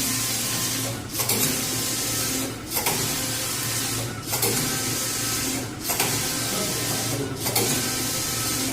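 Computerized flat knitting machine running, its carriage sweeping across the needle bed as it casts on automatically. A steady whirring hiss over a low hum, broken by a short dip about every one and a half seconds, five times in all.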